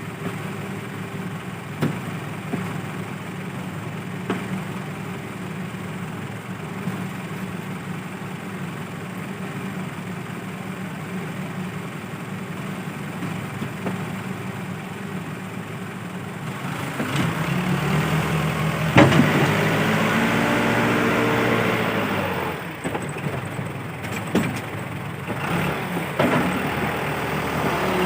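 Case 580L backhoe loader's four-cylinder diesel engine running at low revs with a few sharp knocks, then revving up under load about two-thirds of the way through, its pitch rising and falling, before dropping back.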